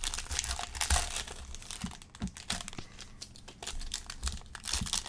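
Plastic wrapper of a pack of football trading cards being torn open and crinkled by hand, in dense bursts of crackling that thin out midway and pick up again near the end.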